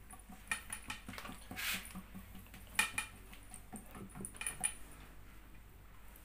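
Oiled hands patting and pressing thin msemen dough flat in a glazed clay dish: soft repeated slaps and squishes with a few light clicks, the sharpest a little under three seconds in.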